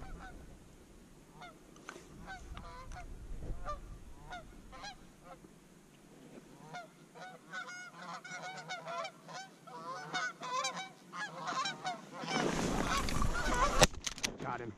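A flock of Canada geese honking as it circles in to land, the calls coming thicker and overlapping toward the end. About two seconds before the end comes a loud rustle of movement, then a single sharp shotgun shot.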